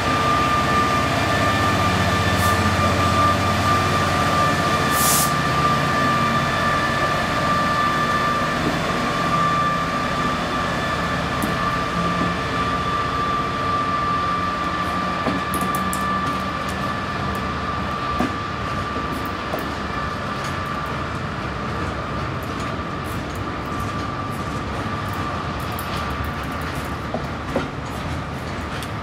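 Class 66 diesel locomotive's two-stroke V12 engine rumbling as it draws a loaded steel train away, then the steel-laden flat wagons rolling past. A steady high-pitched squeal from the wheels runs throughout. From about halfway, sharp wheel clicks over the rail joints become frequent.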